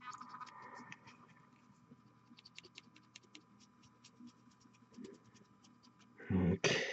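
Faint scratching and small irregular clicks of a fine paintbrush working over a hand-held plastic miniature. A man starts speaking near the end.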